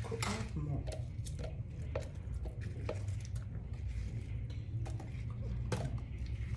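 Scattered light clinks and knocks of kitchen utensils against a bowl and a blender jar as watermelon pieces are added, over a steady low hum.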